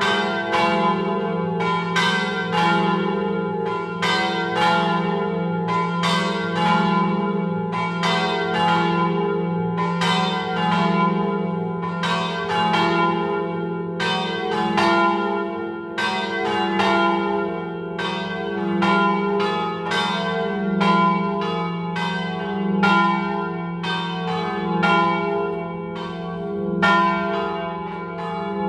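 Three swinging church bells (a peal in F3, slightly flat, cast by De Poli and Clocchiatti) ringing together in the Friulian swing style. Their strikes overlap about two to three times a second over a continuous hum of sustained ringing.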